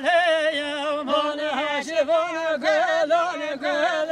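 Wedding dance music led by a man singing in a high voice: held, ornamented phrases with a wavering pitch and short breaks between them.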